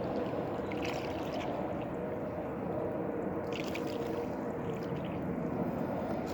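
Water lapping and splashing around a kayak on a lake, with brief splashes about one second and three and a half seconds in over a faint steady hum.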